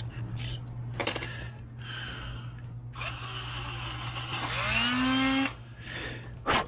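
A small rotary tool with a wire brush wheel runs against the end of a metal brake master cylinder, scrubbing it clean, starting about three seconds in. Near its end the motor's pitch rises to a steady whine before it stops abruptly. Light knocks from handling the part come earlier, and a sharp click comes near the end.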